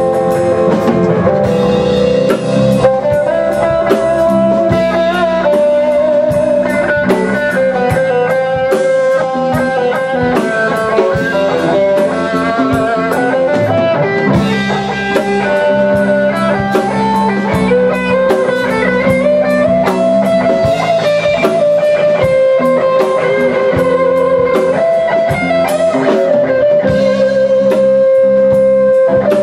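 Rock band playing an instrumental passage: an electric guitar lead holding long notes and bending between them, over bass guitar and a drum kit.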